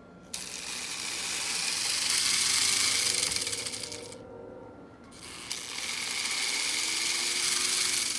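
American Flyer #1680 tinplate electric locomotive running on a loop of track: the motor and gears whir and the wheels rattle on the rails. It starts suddenly, stops about four seconds in, and runs again from about five and a half seconds in.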